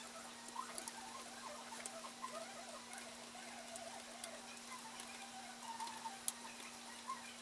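Faint workbench handling sounds sped up four times: small clicks and squeaky chirps as a glue bottle is worked along a balsa wing spar, over a steady low hum.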